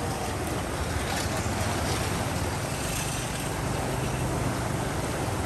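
An engine running steadily under an even rushing noise, with no change in level.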